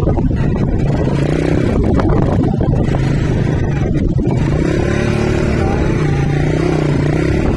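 A motor vehicle's engine running under heavy low rumbling noise; its steady hum comes through more clearly in the second half.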